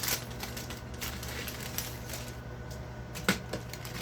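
Microwave oven running with a steady low hum, with a few light clicks and clatter of kitchenware being handled, the sharpest about three seconds in.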